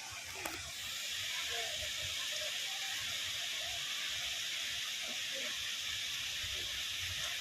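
Steady rushing hiss of a waterfall, swelling slightly about a second in, with faint distant voices underneath.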